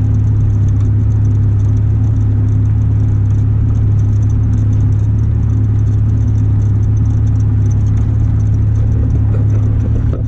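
Straight-piped exhaust of a 1994 Chevy S10 pickup, heard from inside the cab as the truck cruises at steady speed: a loud, even low drone that holds one pitch.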